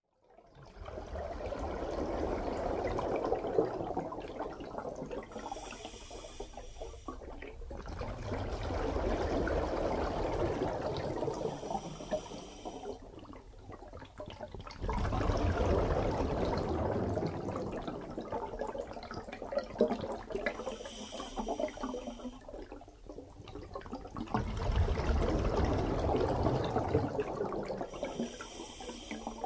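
Scuba diver breathing through a regulator, four breaths: each is a short high hiss on the inhale, then a long gurgling rush of exhaled bubbles.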